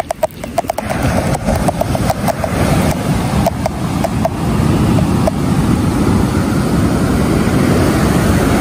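A fishing reel's clicker ticking in quick, uneven runs that slow and stop about five seconds in, as line is pulled off during a bite. A steady rush of wind and surf grows louder underneath.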